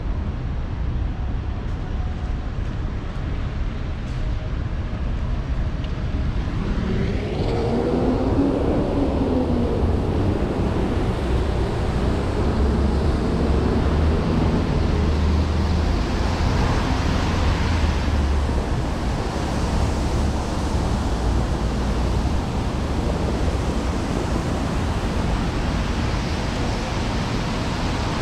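City road traffic on rain-wet streets over a steady low rumble. About seven seconds in, a vehicle passes with its engine note rising and falling, followed by a swelling hiss of tyres on the wet road.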